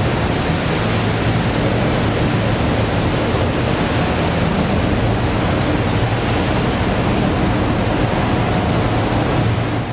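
Churning wake water rushing steadily behind a sportfishing boat under way, with the low, steady drone of the boat's engines underneath.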